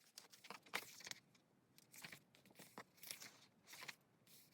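Faint rustling and light clicks of glossy album pages and paper inclusions being handled and turned, in short scattered bursts.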